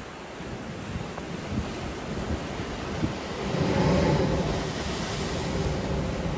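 Ocean surf washing over lava rock. About halfway through, the Spouting Horn blowhole erupts with a swelling rush of spray and air, loudest around four seconds in, then eases back to churning, foaming water.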